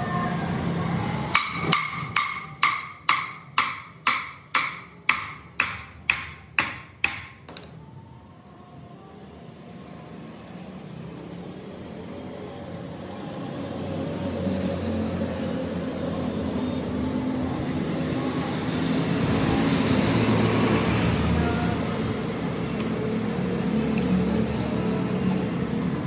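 About a dozen hammer blows on metal in quick succession, roughly two a second, each ringing briefly, stopping about seven seconds in. A steady mechanical noise follows and grows louder.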